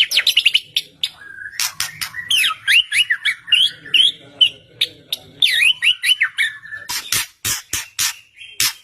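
White-rumped shama singing: a fast, varied run of whistled notes sliding up and down, turning near the end into a series of sharp, harsh clicking notes.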